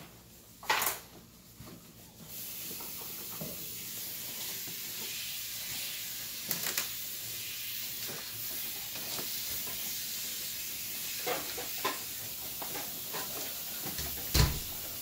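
Kitchen tap running into a steel sink as banana leaves are washed: a steady hiss of water starting about two seconds in, with short crinkling rustles of the stiff leaves being handled and a single thump near the end.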